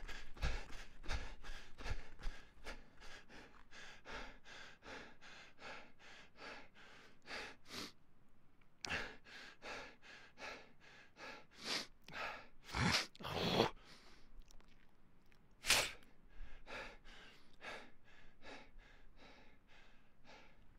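A person panting hard from running: quick, rhythmic breaths about three a second, easing in the second half into a few slower, louder deep gasps.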